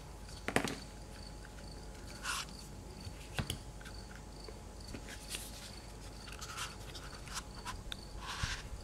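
Handling a leather cartridge pouch: a foam insert and brass rifle cartridges are taken out and pushed in, giving light clicks of brass and soft rubbing and scraping of foam and leather, with a couple of sharper clicks.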